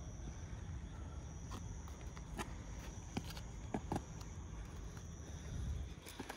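Night field ambience: a steady high insect trill over a low rumble, with a few soft footsteps and scuffs as dancers move on the ground.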